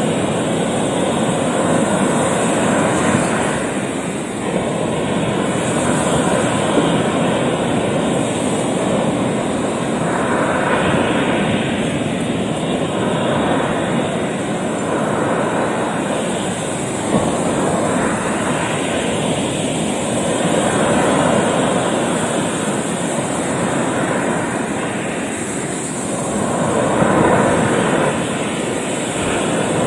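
Sea surf breaking and washing over a rocky shore: a continuous rush that swells as each wave comes in and eases between them.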